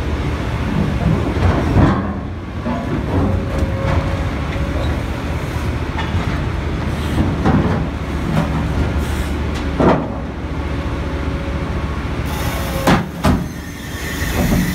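Excavator engine running steadily while a VTN CI13000 hydraulic scrap shear crushes and cuts a steel pipe. The metal creaks and squeals, with sharp cracks as the steel gives way, about two, ten and thirteen seconds in.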